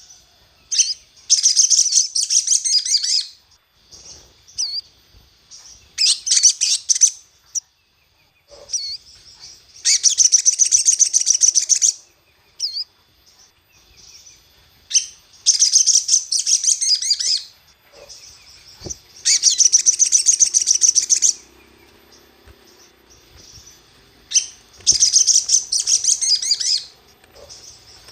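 Crimson sunbird (sogon) singing in repeated bursts of rapid, high-pitched trilling, about six bursts each lasting about two seconds, with a few faint chirps in the pauses between them. It is a 'pancingan' call, played to provoke and excite other sogon.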